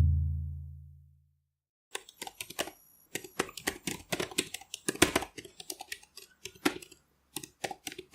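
Computer keyboard typing: irregular, rapid key clicks starting about two seconds in. Before that, the tail of a deep booming hit fades out in the first second.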